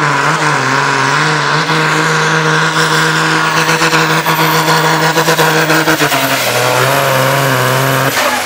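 Pulling tractor's diesel engine running flat out under heavy load, dragging the weight-transfer sled, its note held steady and high; just before the end the pitch drops as the engine comes off full throttle.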